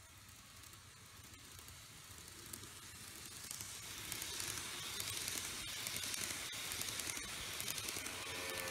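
N-gauge TOMIX E3 series Komachi model train running past close by: a hissy rattle of its wheels on the track, with sharp clicks from the rail joints. It grows louder as the train approaches and is loudest in the second half.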